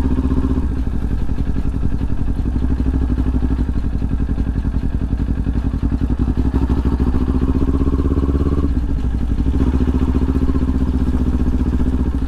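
Kawasaki Ninja 400 parallel-twin engine running under way. Its pitch climbs steadily for a couple of seconds, then drops suddenly about eight and a half seconds in, as at a gear change.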